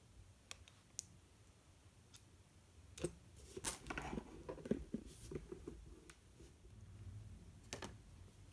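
Faint handling noise from cross-stitch materials: scattered light clicks and rustling as paper chart pages and a floss organizer card are moved. The clicks and rustling bunch together about three to five seconds in, and a couple more clicks come near the end.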